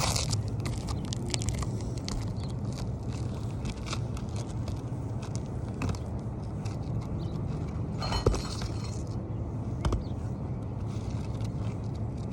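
Asphalt roof shingle being worked back into place: scattered light ticks and scrapes, a short scraping burst about eight seconds in and a sharp knock about two seconds later, over a steady low hum.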